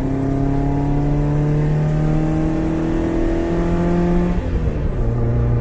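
BMW M44 1.9-litre four-cylinder engine swapped into a Lada 2104, pulling hard under load with its revs climbing steadily for about four seconds, then dropping sharply and carrying on at a lower, steady pitch.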